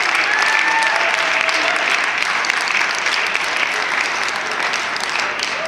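Audience applauding, a dense steady clapping with a brief high call from someone in the crowd near the start, easing off slightly near the end.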